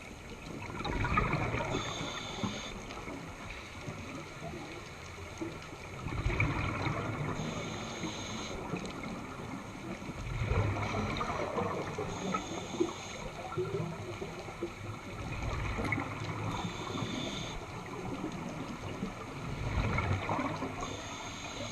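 Scuba diver breathing through a regulator underwater, in slow regular cycles of about four to five seconds. Each cycle has a short high hiss of inhaling and a louder rumble of exhaled bubbles.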